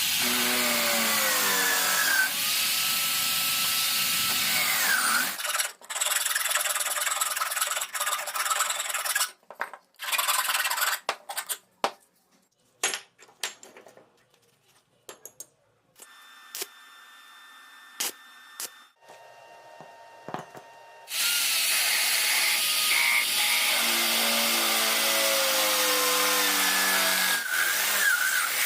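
A power tool working wood, its motor note sagging and recovering under load. It stops after about five seconds, giving way to a choppy stretch of scattered knocks and clicks, and starts running again about 21 seconds in.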